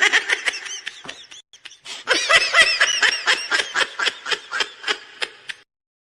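High-pitched laughter, a rapid string of short giggling bursts in two runs separated by a brief lull about a second and a half in.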